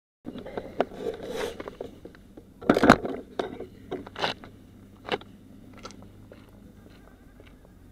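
Close-up handling noise picked up by a small onboard action camera's microphone: irregular clicks, scrapes and scuffs, the loudest about three seconds in, thinning out after about five seconds into a faint steady hiss.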